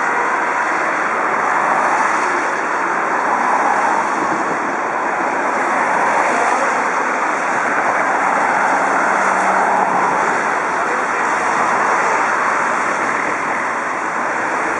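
Steady city traffic: cars passing on a wet road, a continuous hiss of tyres on water with engine noise underneath.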